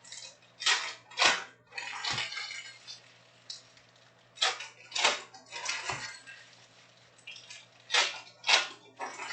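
Trading card packs and chrome cards being handled: a run of short sliding swishes and clicks, several in quick pairs, as cards are pulled out and flicked through.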